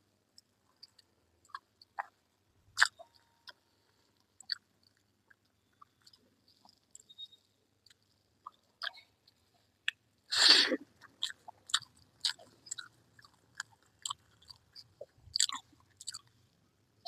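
Close-miked chewing of rice mixed with fried red amaranth greens, with irregular wet mouth clicks and smacks. One louder, longer noisy burst comes about ten and a half seconds in.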